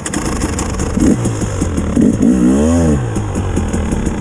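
Off-road motorcycle engine running under load, its pitch rising and then falling once about two and a half seconds in as it revs.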